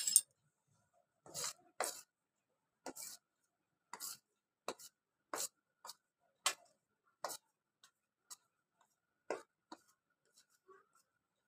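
A metal spoon tapping and scraping as flour is added to sliced onions in a steel bowl: about a dozen short, irregular clicks.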